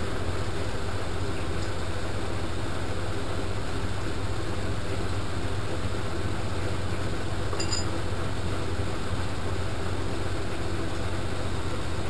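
Front-loading washing machine running steadily through its wash cycle, the drum turning the washing in sudsy water over a constant motor hum.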